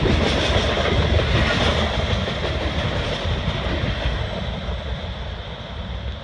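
Freight train's boxcars and covered hopper cars rolling past at close range, steel wheels running on the rails. The sound grows fainter toward the end as the last car goes by.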